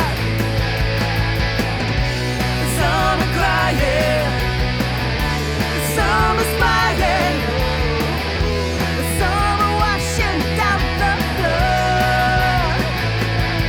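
Rock band playing an instrumental break: a lead melody with bends and vibrato over a steady bass and drums.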